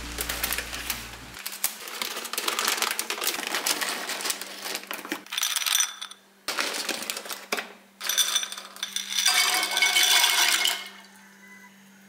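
A plastic pasta bag crinkling as scissors cut it open, then dry penne pasta poured into a ceramic bowl, clattering and rattling in several bursts. The loudest run comes near the end and stops about a second before the end.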